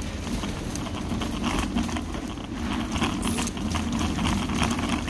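Supermarket background noise picked up while walking: a steady low rumble with light clatter and no clear speech.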